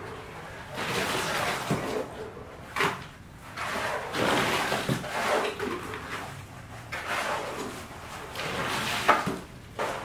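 Hand construction work: buckets, tools and cement bags scraping and clanking on concrete, in irregular swells, with a sharp knock about three seconds in and another near the end.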